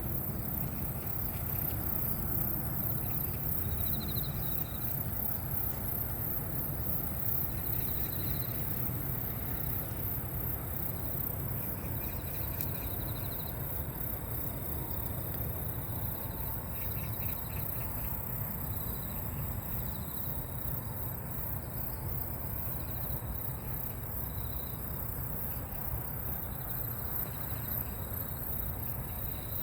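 Insects chirping: short pulsed trills repeating every few seconds, more often in the second half, over a steady high-pitched insect drone, with a low rumble underneath.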